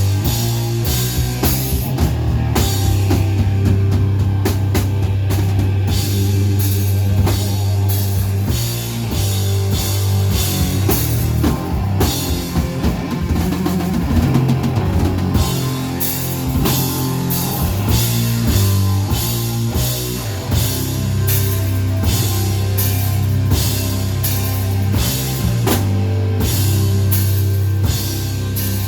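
Heavy rock music with a drum kit keeping a steady beat under cymbal crashes, electric guitar and a sustained low bass line.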